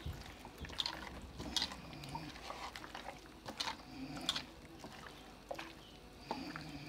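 Raw chicken pieces being mixed by hand in a bowl with salt and ginger-garlic paste: soft, wet squelches and slaps at irregular moments.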